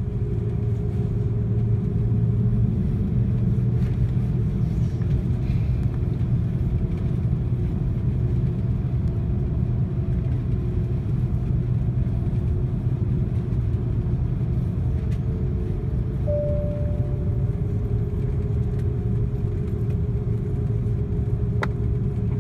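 Cabin noise inside an Airbus A330-300 over the wing while it taxis: the steady rumble of the engines at taxi power with a low hum. A brief faint tone sounds about 16 seconds in.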